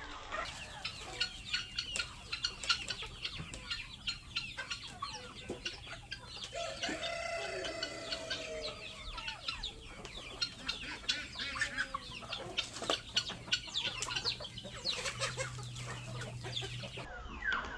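A flock of chickens clucking and chirping, with one longer drawn-out call, likely a rooster crowing, about seven seconds in, over a faint low steady hum.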